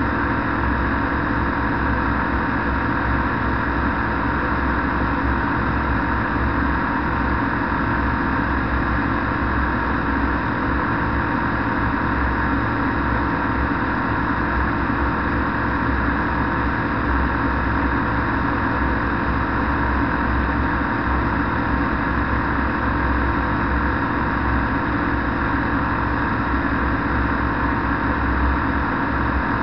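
Microlight trike engine and propeller running steadily at cruise power, mixed with steady wind noise from the airflow over the microphone.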